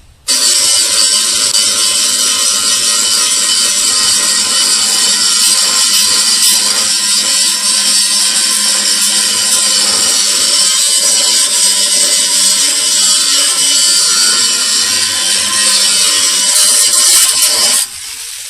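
Grinder cutting and grinding a hole through a lawnmower deck, running steadily. It starts just after the beginning and cuts off suddenly near the end.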